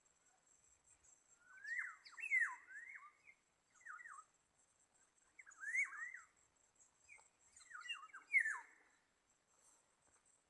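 Black-naped oriole calling: four bouts of short fluty whistled notes that slide up and down, over a faint steady high-pitched insect drone.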